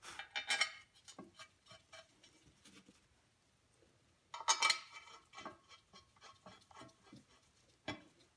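Metal clinks and clicks of small steel bolts being handled and set into the holes of a painted metal chain guard cover: a cluster of clinks at the start, a louder cluster about four and a half seconds in, light ticks between, and one sharp click near the end.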